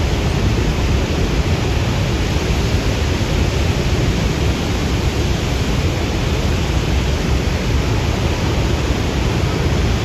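Niagara Falls' water roaring with the churning river below: a steady, unbroken rush, heaviest in the low end.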